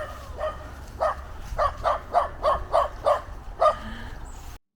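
A dog barking in a quick series of short yaps, about three a second, over a low rumble of wind on the microphone; the sound cuts off suddenly near the end.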